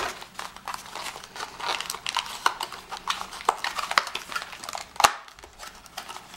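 A small white cardboard box being handled and opened by hand: rustling and scraping of cardboard with many small clicks and taps, the sharpest click about five seconds in.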